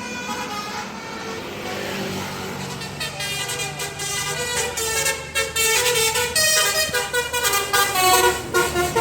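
Bus telolet horn (a Basuri multi-tone musical air horn) playing a tune of stepped notes over road traffic, starting about three seconds in and louder toward the end.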